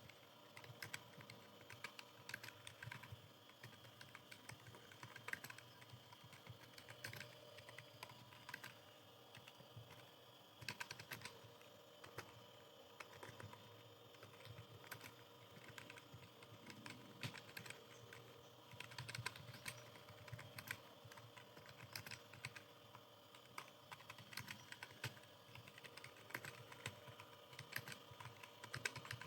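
Faint, continuous typing on a computer keyboard: an uneven run of quick key clicks with brief pauses, as in timed typing-test practice.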